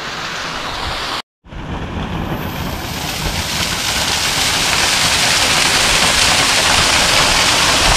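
Small mountain waterfall pouring and splashing onto rocks, heard close up: a steady rushing hiss that cuts out briefly about a second in, then grows louder as the microphone nears the spray.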